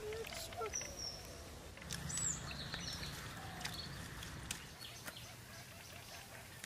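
Outdoor rural ambience with a few short bird chirps and scattered light clicks over a low background hum.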